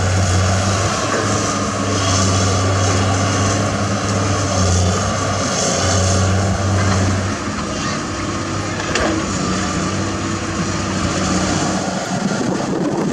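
Heavy construction machinery's diesel engine running under load, a steady low hum over a broad wash of mechanical noise; the hum eases off about seven seconds in.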